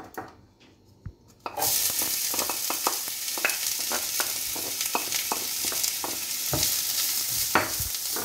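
Chopped onion hitting hot oil in a frying pan: a sudden sizzle starts about one and a half seconds in and keeps on. Through it, a wooden spoon clicks and scrapes against the pan as the onion is stirred.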